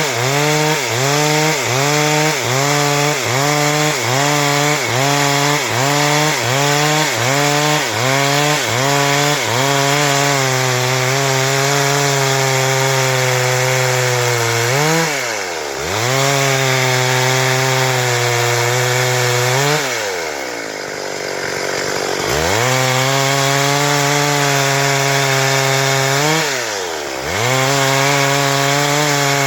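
Stihl MS 382 two-stroke chainsaw ripping through wood at full throttle. For the first ten seconds the revs dip and recover about twice a second, then they hold steady, with a brief drop in revs around the middle, a longer drop and climb back a few seconds later, and another short dip near the end.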